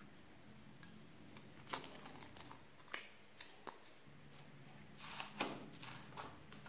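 Jelly slime and floam being squeezed and pressed by hand: scattered soft sticky clicks and crackles, with a louder run of crackles about five seconds in.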